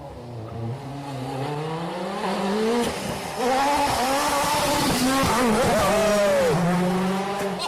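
Rally car engine running hard, its pitch climbing gear by gear, louder from about three and a half seconds in, then dropping sharply near the end.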